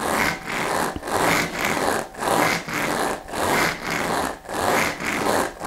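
Steel balls rolling inside a smovey ring's hollow spiral tube, giving a rhythmic rushing rattle that surges about once a second as the ring is bounced overhead.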